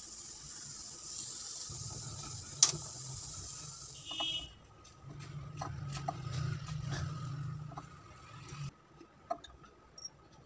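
Pot of soup simmering with a soft hiss, broken by a sharp click and a brief ringing clink. Then a fork picking at meat in a glass bowl gives light scattered clicks, over a low hum that comes and goes.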